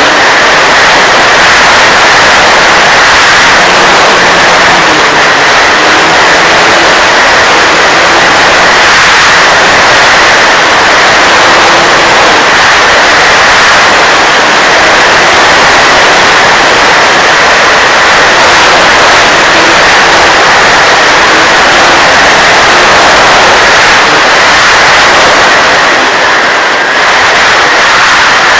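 RC model Mustang plane in flight: a loud, steady rush of air noise, with a faint motor tone wavering up and down in pitch underneath.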